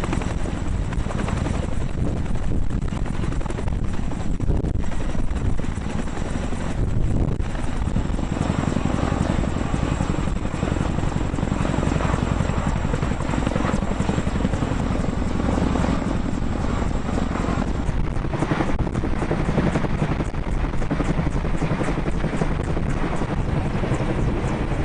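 Chinook tandem-rotor helicopter running close by: a steady, rapid rotor chop with a thin high turbine whine that drops away after about eighteen seconds.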